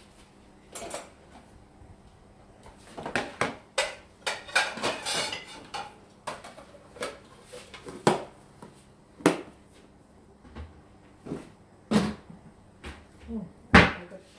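Dishes and kitchen utensils clattering and knocking as they are handled at the sink and dish rack: a run of separate knocks and clinks, busiest a few seconds in, with the loudest knock near the end.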